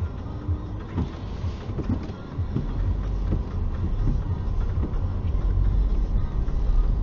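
A car's engine and running gear as it pulls away across a snowy, rutted lot: scattered low knocks, then a low rumble that builds from about two and a half seconds in as the car gets moving.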